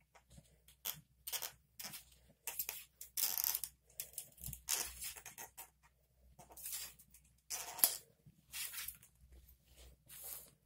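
Cloth rag being rubbed and worked through an air rifle's barrel: a run of irregular scraping, swishing strokes, with one sharp click about eight seconds in. This is a cleaning pass to clear leftover dirt and rust from the bore.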